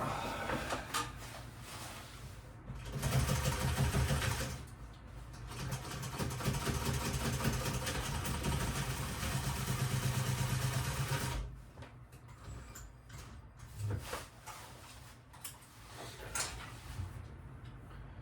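Sewing machine stitching in runs: a short burst, then a longer run of about six seconds that stops abruptly, followed by a few light clicks of handling.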